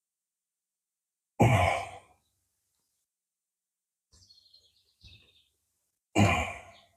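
A man breathing out heavily twice, sighing, about a second and a half in and again near the end, each breath fading out within about half a second. Faint high chirps come between them.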